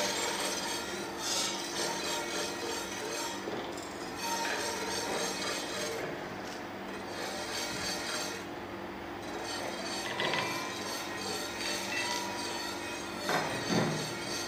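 A spoon scraping and tapping lightly in aluminium flower-shaped kuih bakar moulds as cooking oil is spooned into each, over a steady low hum, with a couple of knocks near the end.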